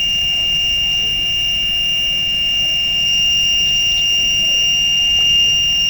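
A steady, high-pitched electronic tone like a buzzer, unchanging throughout, over a low background rumble.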